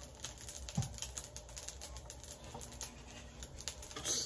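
Fried rice with pork tocino crackling in a pan: rapid, irregular light ticks, with one dull thump about a second in.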